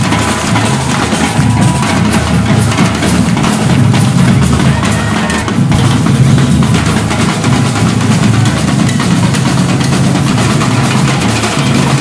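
Music with drums: a drum kit with bass drum and snare playing steadily throughout.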